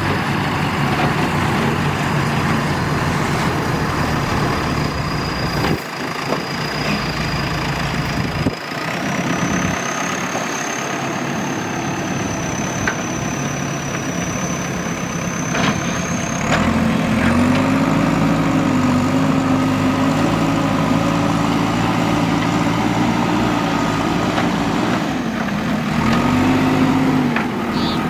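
Diesel engines of a backhoe loader and dump trucks running steadily. A thin high whine steps up in pitch twice, and about two-thirds of the way through the engine tone rises and wavers.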